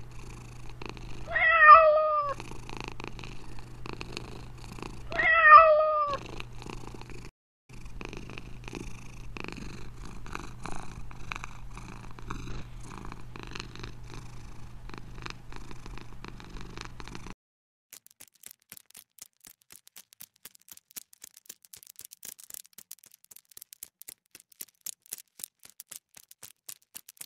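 Domestic cat purring steadily, broken by two meows, one about a second and a half in and one about five and a half seconds in. The purring stops about seventeen seconds in, leaving only faint scattered clicks.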